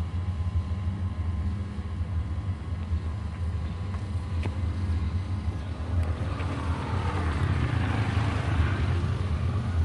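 Steady low outdoor rumble, with a brighter hiss swelling about six seconds in and fading near the end.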